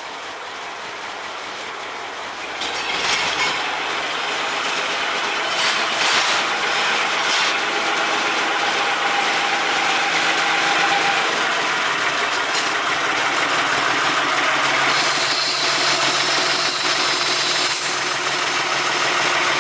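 A 1959 G&S Light Engineering diesel-mechanical miniature locomotive running into the platform with its coaches, its engine and the wheels on the rails growing louder from a few seconds in as it approaches. A high hiss is heard for a few seconds near the end.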